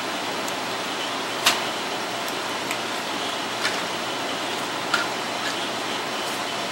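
A few short, sharp clicks and taps over a steady rush of background noise. The loudest comes about one and a half seconds in, with smaller ones later.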